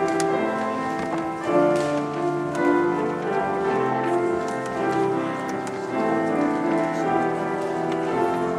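Instrumental music playing held chords that change every second or so.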